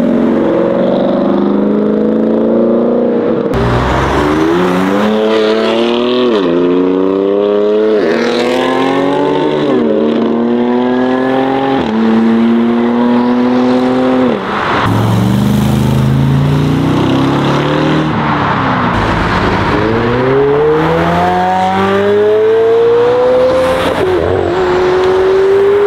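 Modified car engines accelerating hard, the pitch climbing through each gear and dropping sharply at each upshift, about every two seconds. A fresh run of rising revs starts about halfway through.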